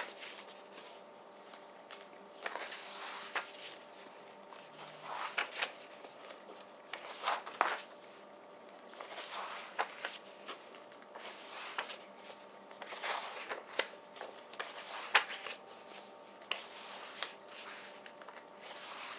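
Paper pages of a paperback workbook being turned one after another by hand, a soft swish and rustle every second or two.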